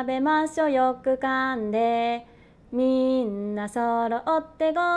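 A woman singing a Japanese school-lunch song in Japanese, unaccompanied, in held notes that step up and down, with a short breath pause about two and a half seconds in.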